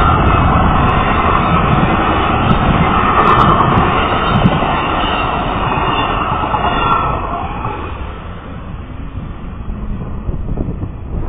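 Amtrak passenger train's cars passing at speed, a loud, steady rush of wheel and wind noise that fades away about seven seconds in as the last car clears.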